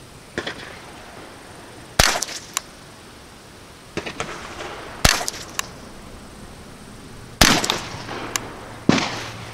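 Ruger 10/22 semi-automatic .22 LR rifle fired several times, single sharp shots one to three seconds apart, with fainter clicks in between.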